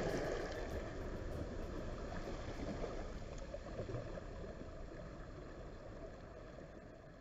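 Ocean waves washing onto a shore: a steady rushing that fades out gradually.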